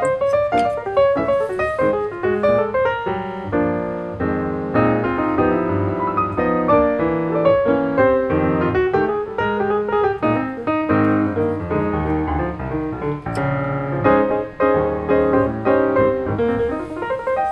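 Background piano music: a melody of many short notes played over lower notes.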